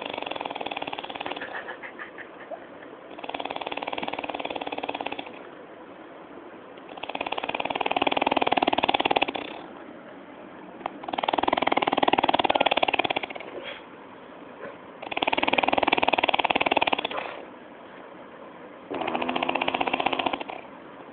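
A person snoring in a steady rhythm: six rattling snores of about two seconds each, roughly every four seconds, the later ones louder than the first two.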